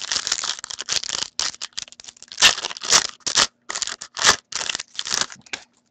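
Wrapper of a hockey card pack crinkling and tearing as it is pulled open by hand: a rapid, irregular run of crackles and rustles that stops just before the end.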